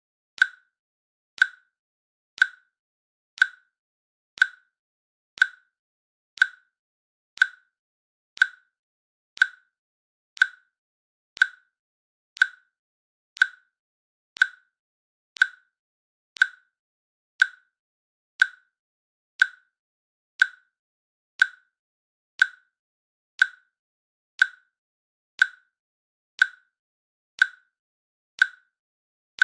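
Timer click sound effect ticking once a second: a short, sharp click, with silence between.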